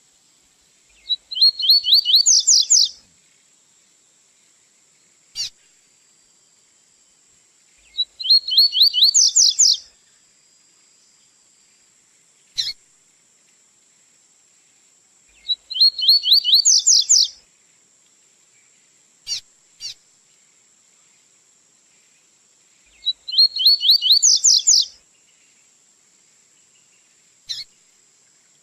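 Double-collared seedeater (coleiro) singing its 'tui-tui' song: four phrases about seven seconds apart, each a rapid run of notes lasting about two seconds and rising in pitch, with a single short sharp call note in the gaps between phrases.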